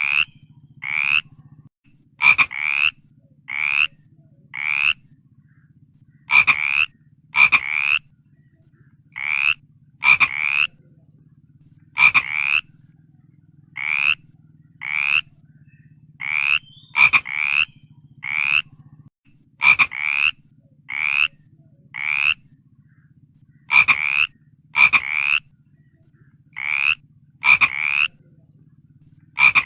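Frog croaking: short rising calls, each about half a second long, repeated roughly once a second, often in twos or threes, some starting with a sharp click. A low steady hum runs underneath.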